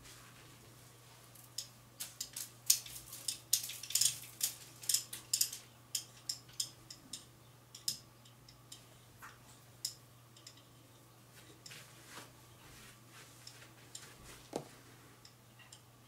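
Irregular light clicks and ticks, many in quick succession for the first several seconds, then sparser, over a faint steady hum.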